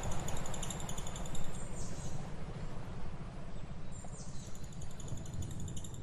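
Lovebird giving rapid, high-pitched chattering trills in two runs, with a quick falling note between them, over a steady low background rumble.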